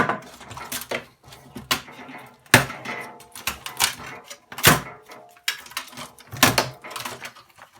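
Clatter of a DVD player being taken apart by hand: irregular clicks, rattles and knocks of its metal casing and parts, with a louder knock about every two seconds.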